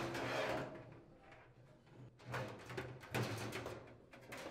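Sheet-metal dryer drum being handled and set onto its rear rollers: a knock with a rubbing scrape at the start, then a few shorter knocks and scrapes about two, three and four seconds in.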